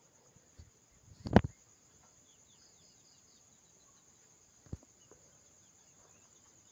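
Crickets trilling steadily in the background, with one sharp, loud knock about a second and a half in and a fainter knock about five seconds in.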